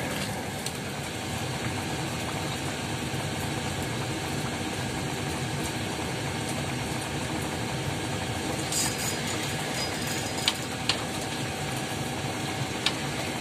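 Steady rain falling on a corrugated shelter roof and the water around it, an even dense patter, with a few sharp taps in the second half.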